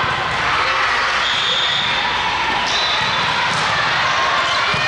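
Volleyballs being hit and bouncing on the court in a large, echoing gym, over a steady din of players' voices and shouts.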